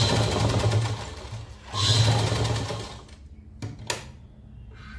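Sewing machine stitching through layered cotton strips in two short runs of about a second each, with the needle ticking rapidly over the drive's hum. A couple of clicks follow near the end as the work is pulled out from under the needle.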